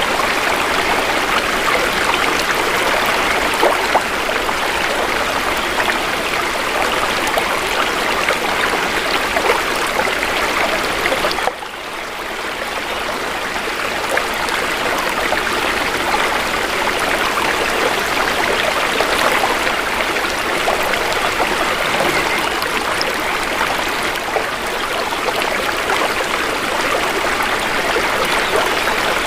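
Shallow river water flowing and babbling steadily over its bed. The sound drops abruptly about eleven seconds in, then builds back up over the next few seconds.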